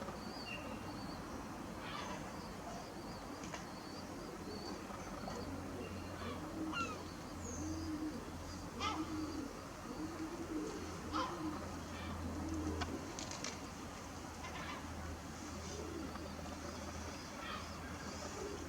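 Dove cooing: a series of about half a dozen low coos in the middle of the stretch, with small birds chirping now and then.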